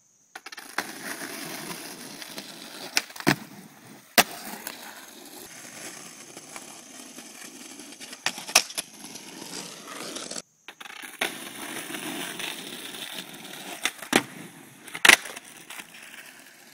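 Skateboard wheels rolling on rough asphalt, with several sharp clacks of the board popping and landing.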